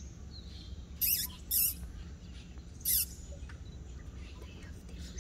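Three short, shrill squeaking calls from an animal: two about a second in, half a second apart, and a third near three seconds in, over a low steady hum.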